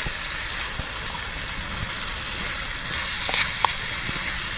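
Chicken thighs in sauce sizzling in a pan on a gel-fuelled camping stove: a steady frying hiss, with a few small crackles about three seconds in.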